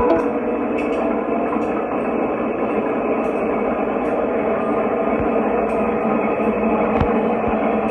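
Electrolux washing machine spinning with a loud, steady mechanical noise from a failing motor bearing, ruined by water leaking onto it from the drain hose.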